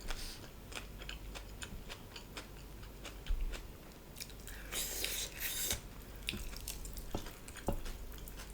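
A person chewing food close to the microphone, with many small clicks and smacks and a longer, rougher noise about five seconds in.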